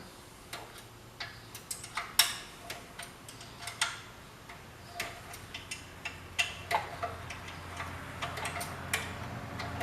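Irregular light clicks and metallic knocks of hand tools and the engine's sheet-metal cover tin being handled. A faint steady low hum comes in about six seconds in.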